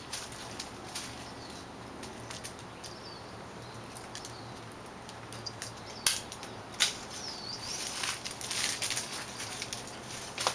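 Rustling and scraping among tree branches and leaves, with scattered clicks and two sharp snaps about six and seven seconds in, the rustling growing busier near the end. Faint bird chirps twice.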